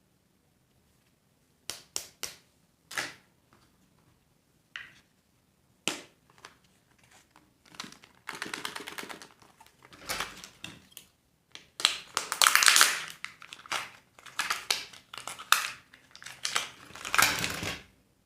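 Surprise-egg and candy wrappers being handled and opened: a few sharp clicks and snaps at first, then longer stretches of wrapper crinkling and tearing.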